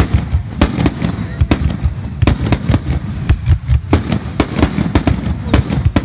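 Starmine fireworks barrage: rapid explosive bursts, several a second, over a continuous low rumble, with faint falling whistles.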